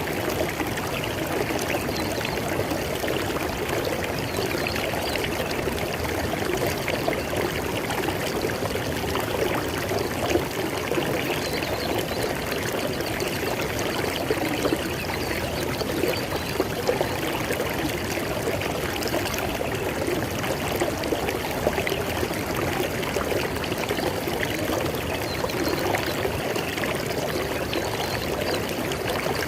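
River water flowing steadily over stones, a continuous babbling rush with small irregular splashes and trickles.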